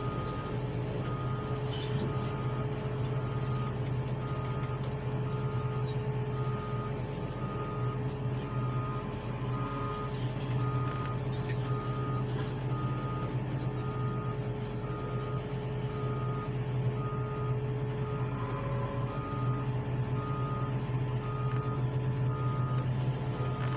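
A reversing alarm on heavy earthmoving equipment beeping at a steady pace, a bit more than once a second, over the steady drone of heavy diesel engines running.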